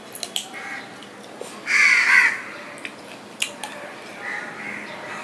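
A crow caws loudly once, about two seconds in, a harsh call lasting about half a second. Around it are the small wet clicks and smacks of someone chewing a mouthful of rice and fish curry.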